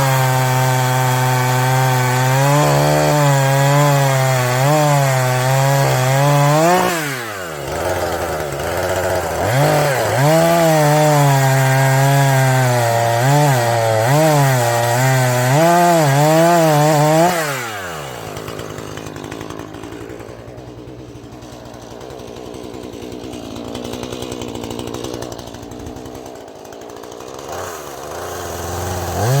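Husqvarna 440e two-stroke chainsaw cutting at high revs, its pitch wavering under load. The throttle drops briefly about seven seconds in, then the saw revs back up and cuts again. From a little past halfway it falls to a quieter idle, then revs up again near the end.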